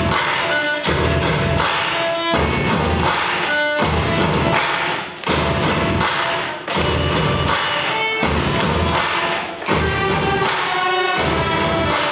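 A youth ensemble of violins playing a rock arrangement over a steady beat of low thumps.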